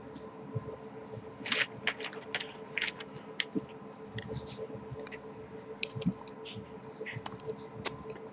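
Irregular typing and clicking on a computer keyboard, over a steady faint electrical hum.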